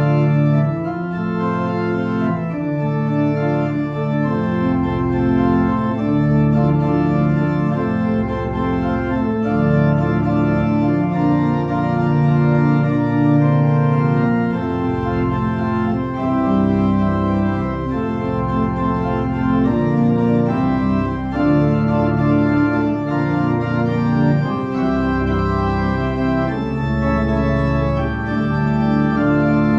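Organ playing slow, sustained chords that change about every second.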